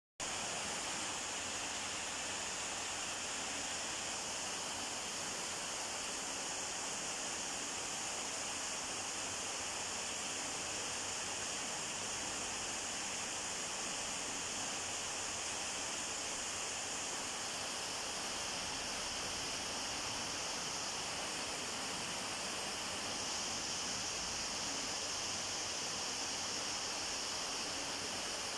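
Steady, even hiss with no change and no cat calls.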